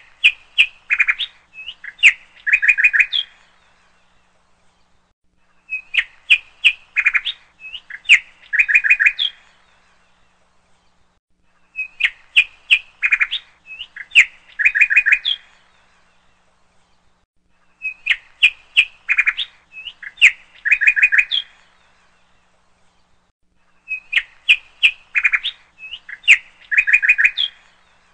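Small birds chirping in quick clusters of short high notes. The same four-second phrase repeats identically every six seconds: a looped bird-chirp sound effect.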